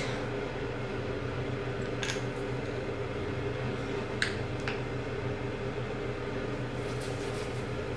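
Steady low hum of a room fan, with three light taps and clicks, two of them close together about four seconds in as a plastic cream tube is set down on the stone counter.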